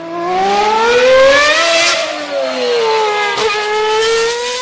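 Vehicle engine revving as an intro sound effect: the pitch climbs for about two seconds, drops back, then rises again, with a brief click about three and a half seconds in.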